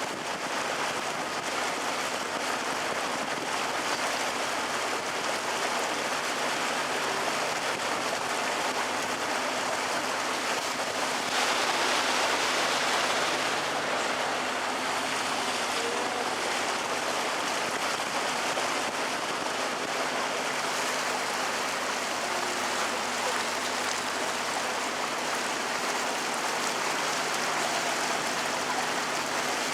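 Canal tour boat under way: a steady rushing noise of the moving boat over the low, even hum of its motor, swelling briefly about twelve seconds in.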